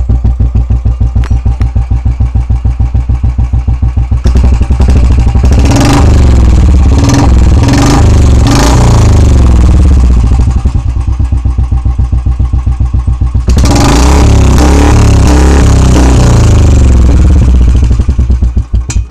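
Royal Enfield Bullet's single-cylinder engine through an aftermarket 'Long Punjab' silencer, heard right at the tailpipe: a pulsing idle thump, then two bursts of revving, with sharp backfire pops (pataka) as the throttle is snapped shut during the first. The engine sound cuts off just before the end.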